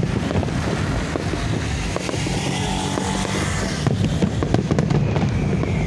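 Fireworks popping and crackling over a steady low rumble, with a motor vehicle's engine running past close by in the middle.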